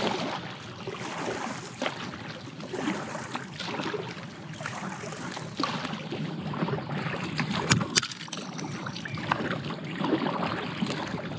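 Paddle blades dipping and splashing in river water with repeated strokes, water dripping and lapping against an inflatable Black Pike 5.0 packraft. A single sharp knock about two-thirds of the way through.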